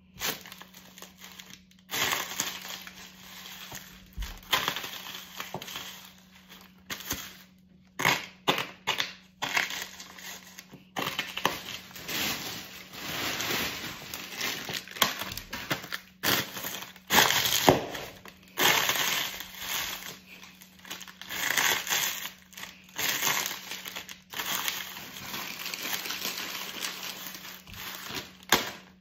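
Crisps crunching and crisp packets crinkling under the heel and sole of a stiletto boot, in many irregular bursts of crackling, some short stamps and some longer grinds, with brief pauses between.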